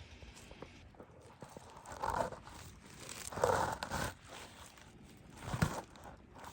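Rustling and snapping of pepper-plant leaves and stems as peppers are picked by hand, in three short bursts, the middle one the longest.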